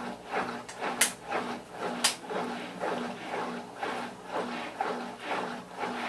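Electrolux Silent Control LAC12 top-loading washing machine agitating a load of wet bedding and towels, churning back and forth in a steady rhythm of about two strokes a second. Two sharp clicks come about a second apart, near the start.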